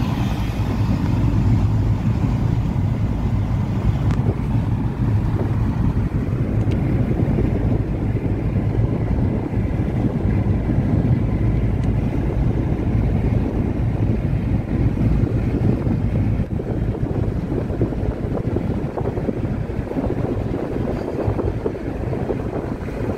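Steady low rumble of a moving road vehicle, with engine and tyre noise on the road, mixed with wind noise on the microphone.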